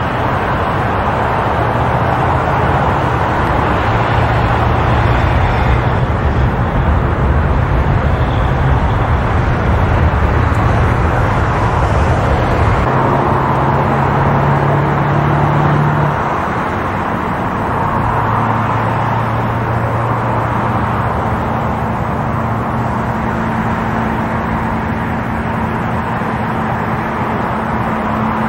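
Airliner engines at takeoff power heard across the airfield: a loud, steady engine noise. A low hum drops out about halfway through, and a higher hum comes in a few seconds later.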